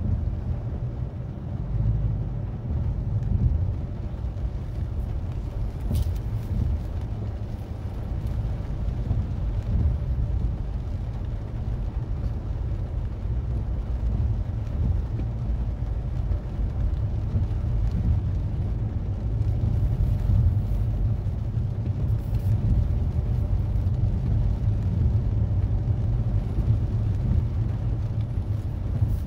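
Steady low rumble of a Mazda 3 driving, engine and tyre noise on a wet road heard from inside the car. There is a single short click about six seconds in.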